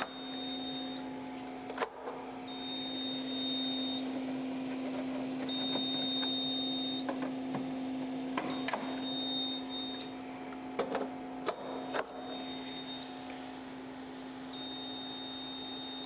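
Fire alarm control panel's trouble beeper sounding a high electronic beep about a second and a half long, roughly every three seconds, over a steady low hum: the panel is signalling a wrong device on its addressable circuit. Several sharp plastic clicks and knocks come in between, as the heat and smoke detectors are twisted out of and back into their bases.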